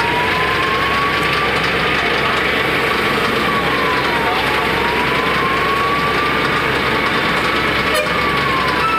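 A fire truck's engine running steadily, with a siren wailing in a slow fall and rise about once every four and a half seconds.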